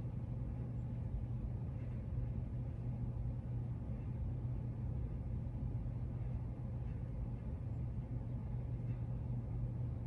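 A 1999 Hampton Bay Tiffany Sonoma ceiling fan running on its low speed: a steady low motor hum over the even rush of air from the spinning blades.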